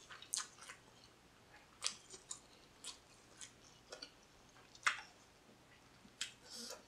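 Close-miked mouth sounds of chewing with the lips closed: scattered soft wet smacks and clicks, the loudest about two and five seconds in, and a short breath blown out through pursed lips near the end.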